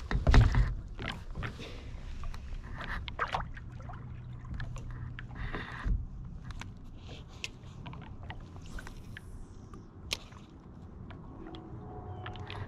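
Water lapping and sloshing against a stand-up paddleboard, with scattered small clicks and knocks from movement on the board and a louder bump at the very start.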